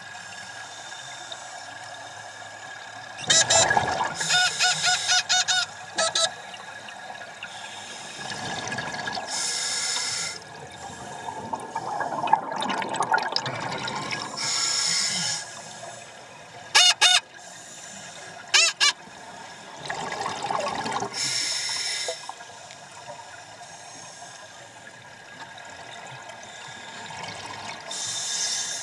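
Scuba regulator breathing underwater: bubbly, buzzing exhalations through the exhaust valve alternate with hissing inhalations, one breath every several seconds.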